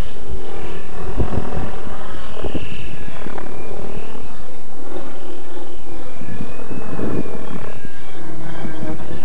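700-size electric RC helicopter on a 6S setup flying at low head speed: a steady rotor hum with a higher motor whine that drifts slightly up and down in pitch as it manoeuvres.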